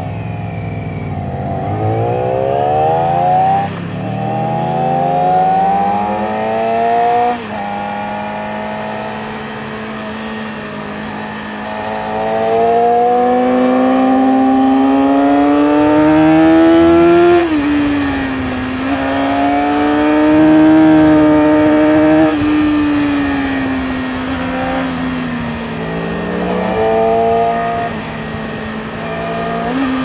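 Yamaha R6 inline-four sport-bike engine heard from the rider's seat, revving hard through the gears: the pitch climbs and drops sharply at each of about three upshifts, then holds high and slowly falls as the throttle eases, with a short rev near the end.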